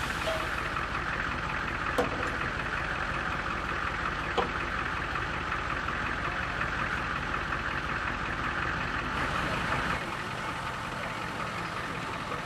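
A vehicle engine idling steadily, with two sharp clicks about two and four and a half seconds in. The deep rumble drops away near the end.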